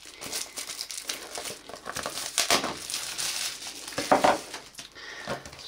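Plastic shrink wrap on a phone box crinkling and crackling in irregular bursts as it is handled and pulled off by hand.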